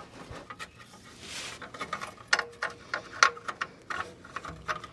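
Scattered light metallic clicks and clinks from hands handling parts and tools under the van's exhaust, with a breath a little over a second in.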